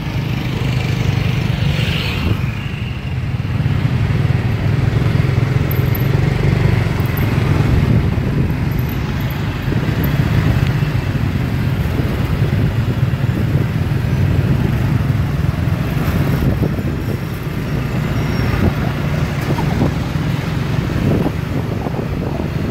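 Motorbike running along a road at speed, heard from the pillion seat: a loud, steady rumble with surrounding road traffic.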